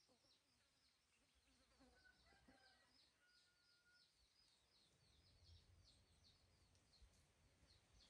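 Near silence with faint birds chirping in the background: a steady run of short high chirps, about two or three a second.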